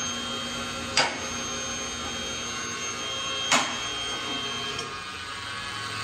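A machine running steadily with a faint high whine, and two sharp clicks, one about a second in and another about two and a half seconds later.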